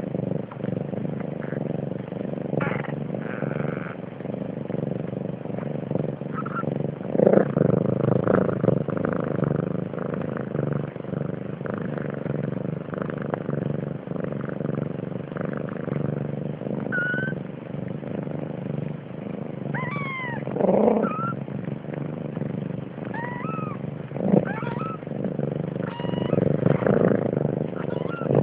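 Siamese cat purring steadily in a low, continuous rumble. Newborn kittens give a few short, thin squeaks in the second half.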